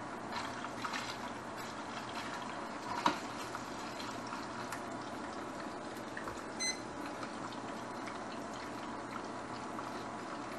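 Spaghetti boiling in a stainless steel pot of water, with the steady bubbling of the boil and metal tongs clinking against the pot as the pasta is stirred. The sharpest clink comes about three seconds in, and there is a short electronic beep a little past halfway.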